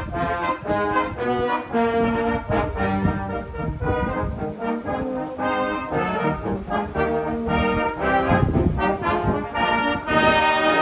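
Brass instruments playing a tune of held notes that change pitch every second or so.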